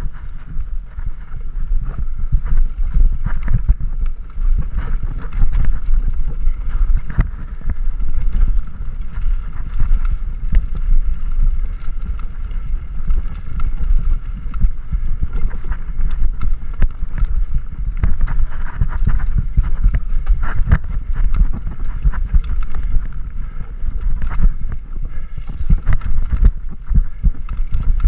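Wind rushing over a body-mounted action camera's microphone, with the rattle and knocks of a mountain bike descending a rough dirt trail.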